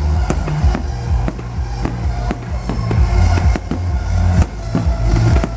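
Fireworks going off in a rapid, uneven run of sharp bangs, about two to three a second, over loud electronic dance music with heavy bass from a festival sound system.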